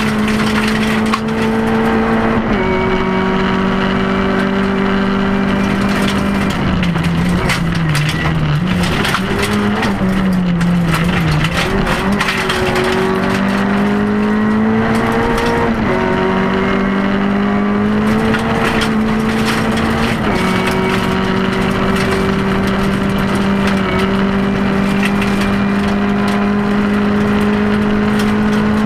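Rally car engine heard from inside the cabin, pulling hard on a gravel stage. The pitch steps down at several upshifts and sags and wavers for a few seconds mid-way before climbing again, with gravel ticking and crackling against the car throughout.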